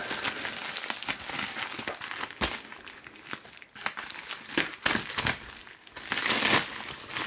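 Plastic bubble-wrap mailer crinkling and rustling as hands handle it and cut it open with scissors. Irregular crackles with a few sharp clicks, and a louder stretch of crinkling near the end.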